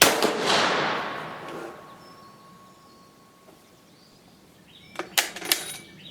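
Dutch Beaumont rifle firing a single shot of a cast-lead-bullet handload: one sharp report that rings out and dies away over about two seconds. About five seconds in comes a quick run of metallic clicks as the bolt is worked and the spent case is extracted.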